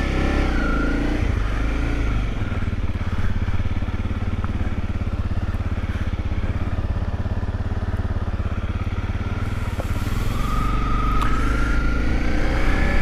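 Honda Rally dual-sport motorcycle's single-cylinder engine running steadily while riding along a dirt road. The engine note rises near the end.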